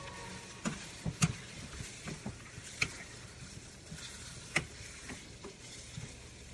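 Yogurt-marinated chicken sizzling in hot ghee in a nonstick frying pan. A spatula stirs and turns the pieces, giving irregular scrapes and clicks against the pan; the sharpest comes about four and a half seconds in.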